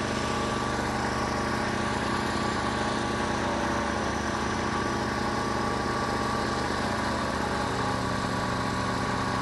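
An engine running steadily at idle, a constant hum with no change in speed.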